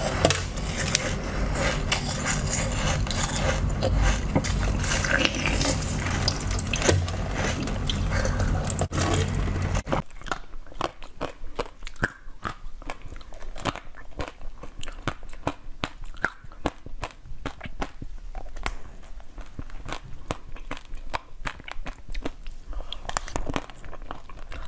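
Close-miked eating sounds. For about the first ten seconds, dense, loud biting and chewing of a white peach-shaped jelly sweet. Then, after a sudden change, quieter wet mouth clicks and chewing of soft durian flesh.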